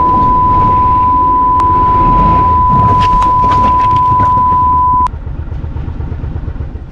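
Censor bleep: a steady high beep held for about five seconds, then cut off suddenly, over a loud rushing, rumbling background.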